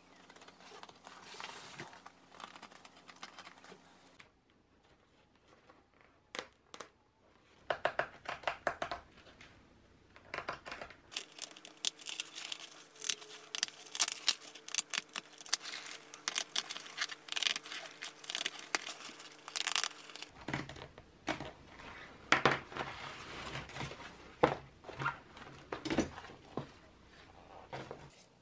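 Old chopper seat cover being taken apart by hand: crinkling, tearing and crackling as the seam stitches are cut and the stiff cover is pulled away from the seat base, in many quick sharp snaps that come in several separate runs.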